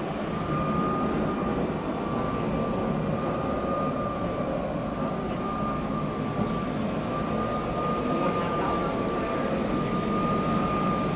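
Windsor Karcher Lightning battery burnisher running steadily, its high-speed 3M burnishing pad spinning on vinyl composition tile to restore the shine. It gives a constant whine over a dense rushing motor noise.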